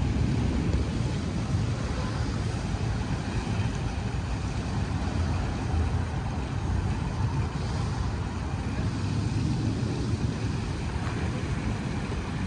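Steady low rumble of a 55 m superyacht's engines and propellers working at low speed while manoeuvring astern into a berth.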